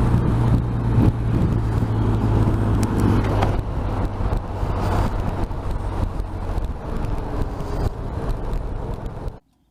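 BMW R 1250 RT's boxer twin engine running at road speed under a steady rush of wind and road noise; the engine note drops back after about three and a half seconds, and the sound cuts off suddenly near the end.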